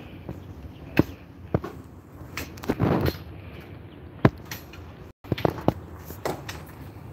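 Footsteps on a paved stone terrace: a string of irregular sharp taps, with a short rush of noise about three seconds in.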